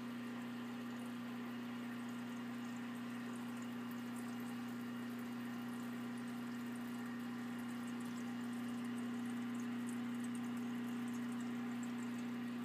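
Aquarium air pump humming steadily, with water bubbling from its airline in the tank.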